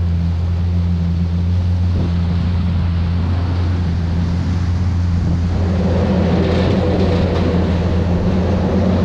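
Yamaha WaveRunner personal watercraft engine running at low speed with a steady low drone, with wind on the microphone. About two-thirds of the way through, a louder humming joins in over it.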